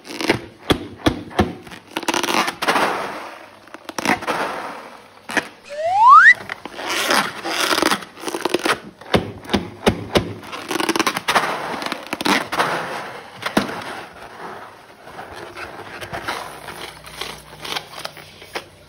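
Balloons and slime being handled and worked: sticky crackling, clicks and scraping come in quick runs. About six seconds in, a short rising squeak is the loudest sound.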